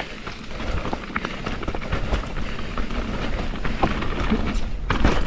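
Mountain bike riding fast down a wet dirt trail: tyre noise and wind rumble on the microphone, with many small clatters and knocks from the bike over bumps. It grows steadily louder as speed builds.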